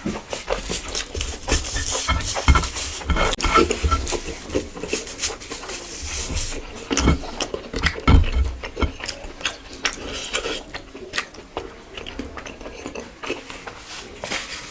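Close-up eating sounds: chewing a mouthful of rice and curry, with many irregular wet clicks.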